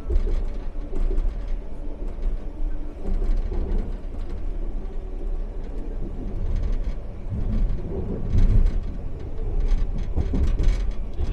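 Expo Line SkyTrain car running along the guideway: a continuous low rumble of the train in motion that swells and eases, with brief clatters along the way.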